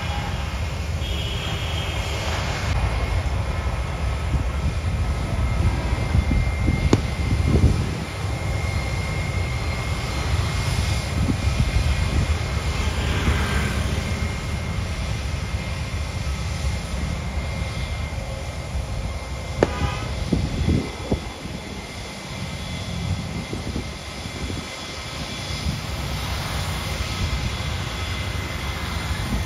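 Steady rumble and hiss of an Airbus A320-family airliner's jet engines as it rolls along the runway and taxis. A sharp click comes about seven seconds in, and another about twenty seconds in.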